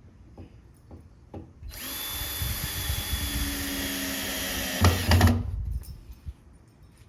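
Screw gun driving a drywall screw for about four seconds, a steady motor whine, with a few heavier knocks near the end before it stops.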